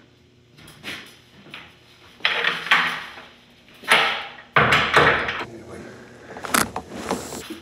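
Water poured from a large water-cooler jug, splashing into a toilet in several loud gushes, faked to sound like someone peeing.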